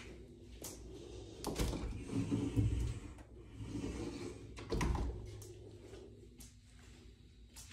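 Bifold closet doors folded open and shut again by hand. A knock about a second and a half in as they open, sliding and rubbing as the panels move, and another knock near the five-second mark as they close.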